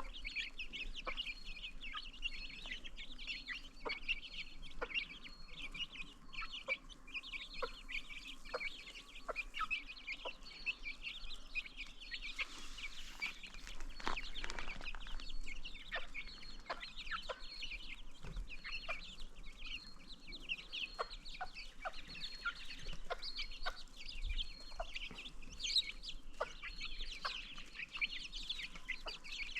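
Chickens with baby chicks: constant high-pitched peeping from many chicks, with scattered clucks mixed in and a brief rustling noise around the middle.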